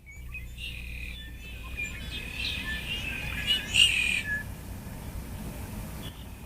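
Birds chirping and calling over a steady low rumble. The chirps are busiest in the first few seconds, peak at about four seconds in, then thin out.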